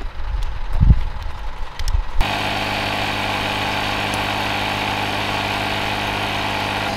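Poles of a folding camp chair knocking and clicking as the frame is put together. About two seconds in, a steady motor hum starts abruptly and runs on evenly.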